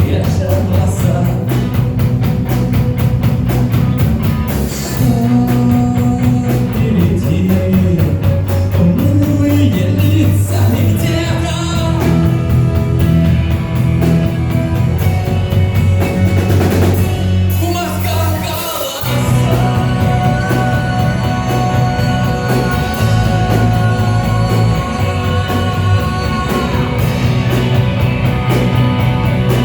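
Rock song with singing over drums and guitar, with a short break about two-thirds of the way through before the band comes back in.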